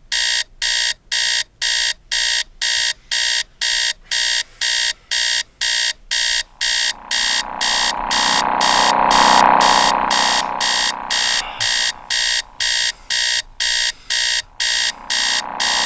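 Electronic alarm beeping steadily, about two beeps a second. From about seven seconds in, a drone swells up beneath it, loudest around ten seconds, then fades.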